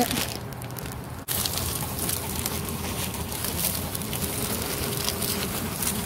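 Plastic bag crinkling and rustling as corn is handled out of it. It starts abruptly about a second in, then goes on as a steady crackle.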